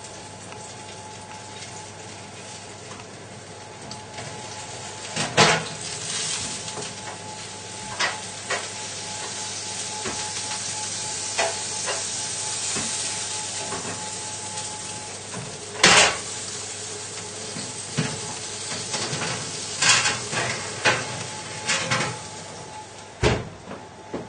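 Food sizzling on a hob: a steady hiss that swells in the middle, broken by a string of sharp knocks and clatters of pans and kitchen things, the loudest about two-thirds of the way through.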